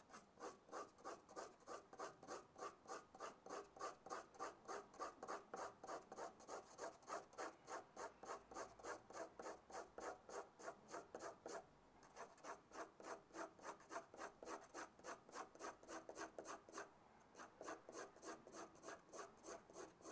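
Pencil lead scratching across paper in quick, even hatching strokes, about four a second, pausing briefly twice in the second half. The strokes go over the same area again to build up dense parallel shading lines.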